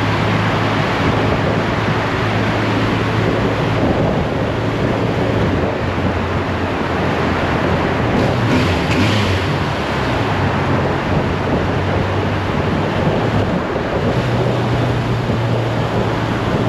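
Motorcycle in motion: wind rushing over the microphone, with the engine's steady low hum underneath.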